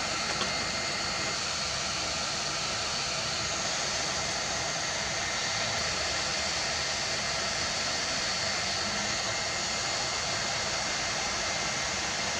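858D hot air rework station blowing a steady hiss of hot air from its nozzle, with a faint high whine, while it heats a chip on a circuit board to loosen its solder.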